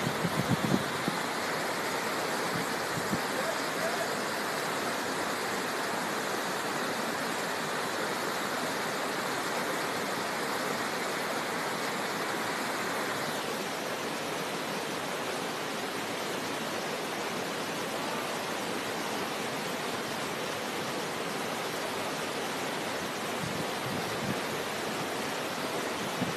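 Fast river rapids rushing steadily over rocks, a continuous even roar of whitewater. A few brief low bumps at the very start.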